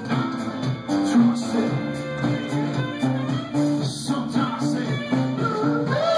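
A live rock band playing, with electric guitar over a steady, rhythmic bass line stepping between notes.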